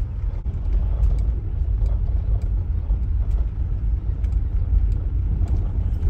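Steady low rumble of a car rolling slowly along a gravel road, heard from inside the car, with faint scattered clicks over it.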